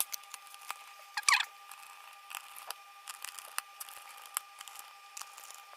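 Small plastic clicks and taps from an Acer Aspire ES 11 laptop's plastic bottom cover being fitted back and pressed into place, with a short scraping squeak about a second in.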